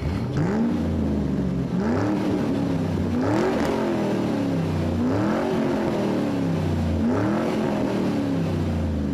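Car engine revving up and easing off again and again, its pitch climbing quickly and then sinking about every two seconds.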